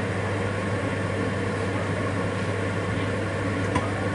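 Steady low hum of a running kitchen appliance or fan, with one faint click near the end.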